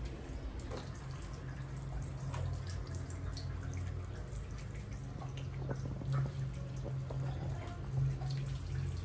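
Handheld shower head spraying water onto a wet baby monkey and the tiled floor, with scattered drips and splashes. A steady low hum runs underneath.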